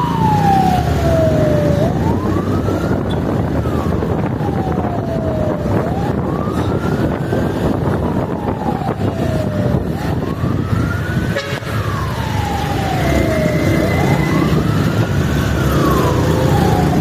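Police vehicle siren wailing, each cycle rising quickly and falling slowly, about one every four seconds. Steady engine and road noise runs underneath.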